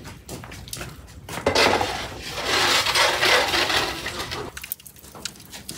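Metal baking pan slid across the brick floor of a wood-fired oven, a loud scrape lasting about three seconds, followed by a few sharp clinks.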